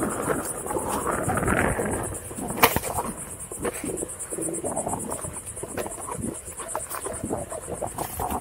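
A steady, high-pitched chorus of insects runs over the uneven rumble of a Onewheel rolling along a bumpy dirt trail. A single sharp knock comes about two and a half seconds in.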